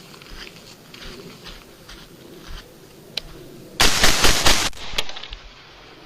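Gunfire: scattered faint pops, then a loud burst of rapid automatic fire about four seconds in, lasting about a second, followed by a single shot.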